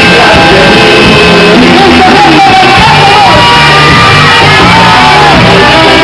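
Ska band playing live and very loud, with a lead singer shouting and singing over guitars, bass and drums.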